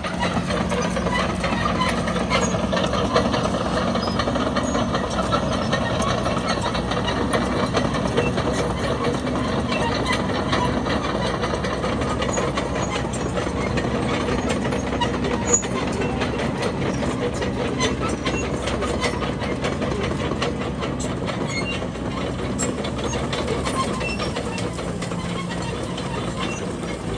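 Komatsu D31PX crawler bulldozer's diesel engine running steadily under load, with the tracks clanking and many small clicks and cracks throughout.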